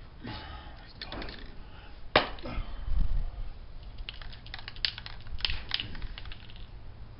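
Handling noises: a sharp knock about two seconds in, a heavier thump just after, then a run of small clicks and taps.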